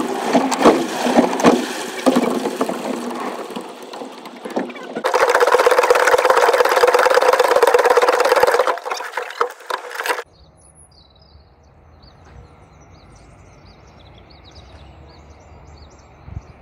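Loud rushing wind and water noise on a microphone at the bow of a moving rowing boat, with clicks and knocks at first and a steady drone from about five to nine seconds in. The noise cuts off suddenly about ten seconds in, leaving a low hum and birds chirping.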